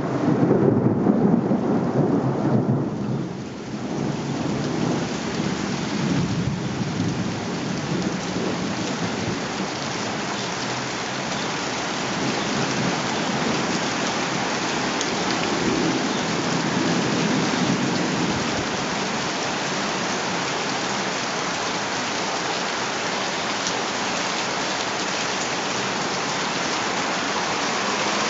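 Thunderstorm: rain falling steadily on surfaces, with a rumble of thunder dying away over the first few seconds and a fainter rumble about halfway through.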